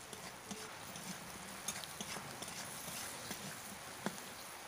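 Spatula stirring potatoes and onions in a metal kadai: faint scraping with irregular clicks and knocks of the spatula against the pan, one a little louder near the end.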